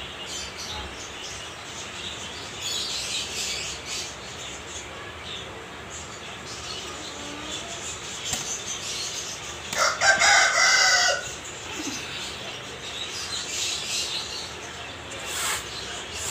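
A single loud bird call about ten seconds in, lasting about a second and a half and falling in pitch at its end, over steady background noise.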